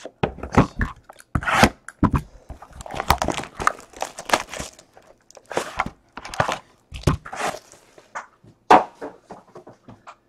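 Shrink wrap being ripped and crinkled off a Panini Plates & Patches hobby box of football cards while the cardboard box is handled: an irregular run of crackles, rips and light knocks.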